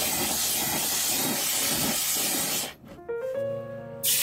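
Gas torch flame hissing steadily as it heats a sterling silver strip to a glow for annealing, cutting off after about two and a half seconds. Near the end a short hiss follows as the hot silver is quenched in water.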